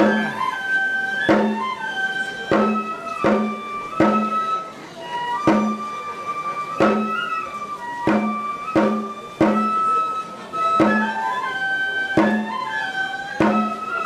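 Traditional Japanese festival music: a flute plays a sliding melody over a steady drum beat, about three strikes every two seconds.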